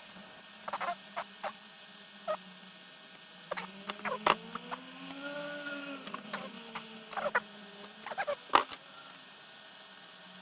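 Irregular small clicks, taps and scratches of tools and small parts handled close to the microphone during fiddly bench work on wiring. A brief tone rises and then falls in pitch in the middle, and a sharp click near the end is the loudest sound.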